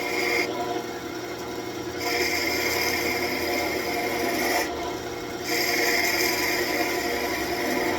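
Wood lathe spinning a birch branch, its motor humming steadily, while a small gouge cuts the wood in passes. The cut breaks off about half a second in, starts again about two seconds in, and pauses once more for a moment just before five seconds.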